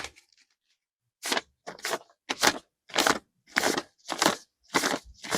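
Crisp new banknotes counted by hand, each note flicked with a short papery snap, about eight snaps in an even rhythm of nearly two a second, starting about a second in. Real currency notes performed as a Foley money-counting effect.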